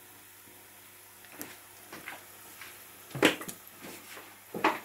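Chopped onions sizzling faintly in oil in a frying pan, with a few sharp knocks of pots and pans, the loudest about three seconds in.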